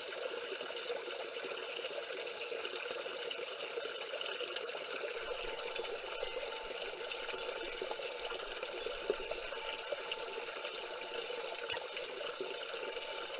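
Water of a small waterfall splashing and flowing steadily over river stones.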